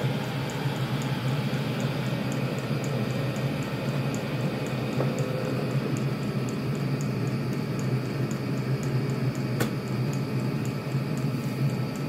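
Chinese diesel air heater running after start-up: a steady fan and burner roar with the fuel pump ticking at about two or three beats a second. One sharp click sounds about ten seconds in.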